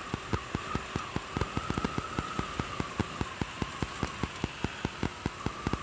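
Riding noise of a motorcycle on the move: a steady hiss with a faint wavering whine, broken by rapid, irregular low thumps of wind buffeting the microphone, several a second.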